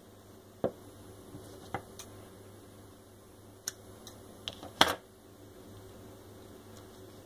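Hands handling a roll of white tape and a cut strip of it on a tabletop: a handful of short clicks and light knocks, the loudest about five seconds in.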